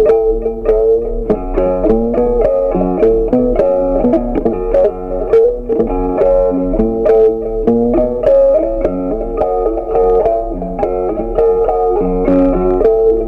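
Background music: a plucked guitar playing a steady, quick run of notes.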